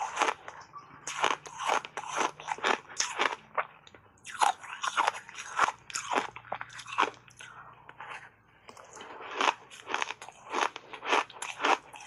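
Block ice coated in matcha powder being bitten and chewed: crisp, rapid crunching, several crunches a second, with short lulls about four and eight seconds in.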